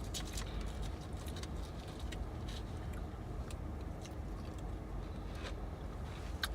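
Steady low rumble of a car's interior, with scattered faint clicks and taps.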